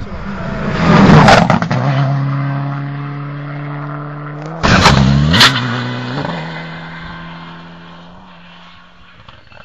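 Rally car engine at high revs going by: it builds to a loud peak about a second in, then holds a steady note. About halfway it comes back suddenly and loud, with a couple of sharp cracks and a dip and rise in pitch, then fades away.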